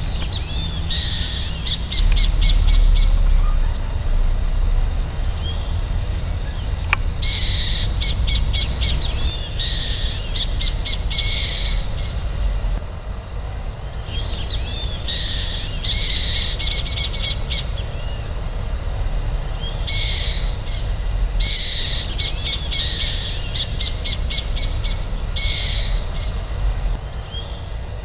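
Burrowing owl calling: short bursts of rapid chattering notes, repeated every few seconds, over a low rumble that is loudest a couple of seconds in.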